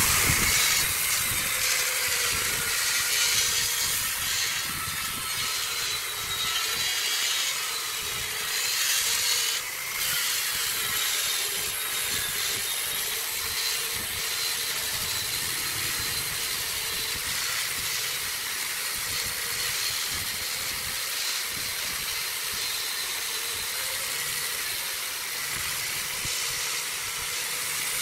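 A power tool working wood, running with a steady hiss and a faint motor whine.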